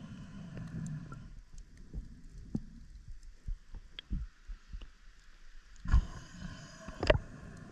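Muffled water sound picked up by a camera near and under the sea surface: a low rumble with scattered clicks and soft thumps, and two sharper knocks about six and seven seconds in.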